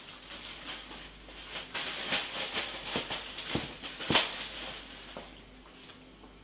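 Cardboard and paper packaging being rummaged through by hand: rustling with a few sharp taps and knocks, dying down after about five seconds.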